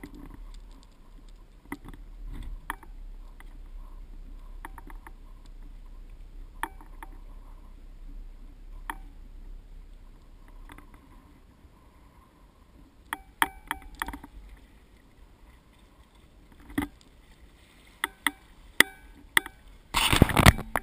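Small boat at sea: a steady low rumble with scattered knocks and clicks, thickening into a burst of loud clattering near the end.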